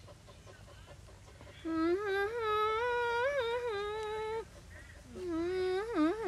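A woman humming a tune: one phrase of a few seconds with held notes that step gently up and down, then a second phrase starting near the end.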